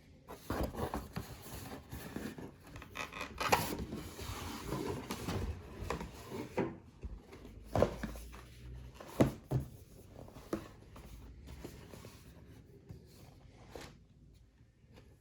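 Handling noise from unboxing a pair of sneakers: irregular rubbing, rustling and scraping of the box, wrapping and shoes, with a few sharp knocks, the loudest about 3.5, 8 and 9 seconds in. It quiets toward the end.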